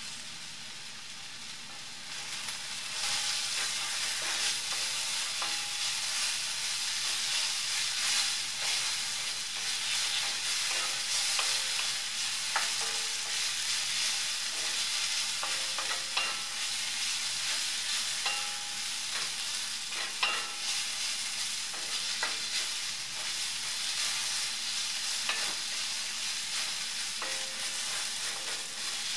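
Sliced red onions sizzling in coconut oil in a pan while a wooden spatula stirs them, with scattered scrapes and light knocks of the spatula against the pan. The sizzle gets louder about two to three seconds in.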